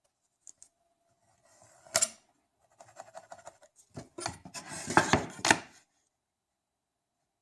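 Small hand tools and a wooden board being handled and set down on a work surface: a couple of light clicks, a sharp knock about two seconds in, a run of small ticks, then a cluster of clattering knocks.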